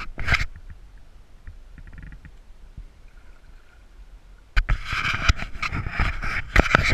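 Water splashing and sloshing at a kayak close to the microphone, with light knocks. After a short burst at the start it is faint for about four seconds, then it comes back loud and continuous about four and a half seconds in.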